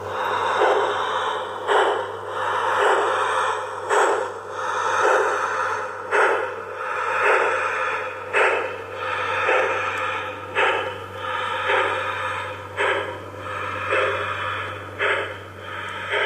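G-scale model steam locomotive chuffing slowly and evenly, about one strong chuff a second with softer chuffs between, over a steady low hum.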